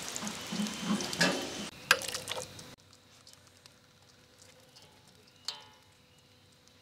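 Groundnut oil sizzling and crackling on a hot iron griddle over a wood fire, with a sharp click about two seconds in. The sizzle cuts off abruptly about three seconds in, leaving a quiet background broken once by a short sharp sound.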